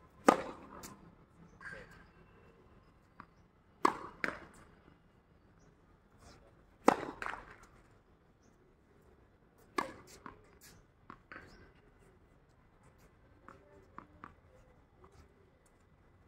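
Tennis racket striking the ball on a serve, a sharp crack about a third of a second in. Further sharp ball impacts and bounces follow every few seconds: a pair near four seconds, a loud one near seven, and softer ones after ten seconds.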